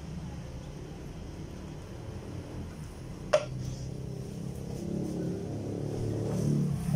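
Hinged screen-printing press frame clacking once as it is lifted off the printed umbrella panel, a sharp knock about halfway through, over a steady low hum. A low engine-like rumble builds near the end.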